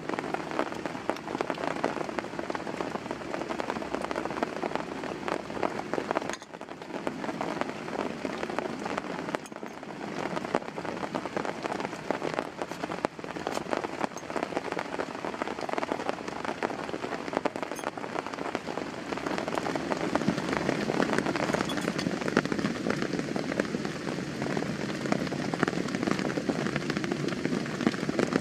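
Heavy rain falling steadily, a dense patter of drops that grows a little louder about two-thirds of the way through.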